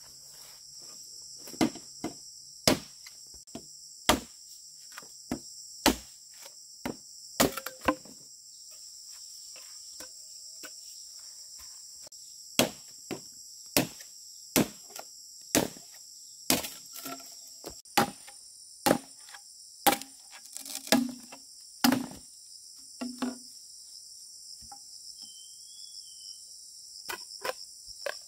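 A hand tool striking wood in sharp, irregular blows, roughly one every half second to a second, with a break in the middle and another near the end. A steady high insect shrilling carries on underneath.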